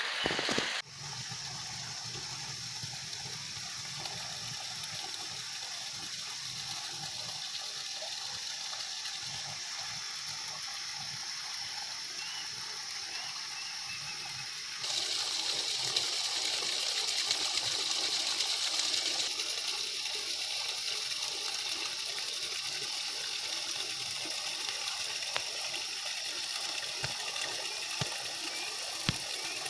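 Steady rush of flowing water, with the level stepping up about halfway through.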